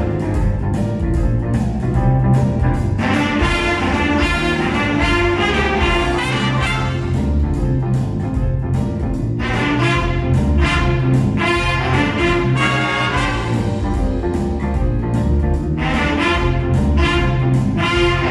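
An instrumental ensemble playing a piece with a steady beat.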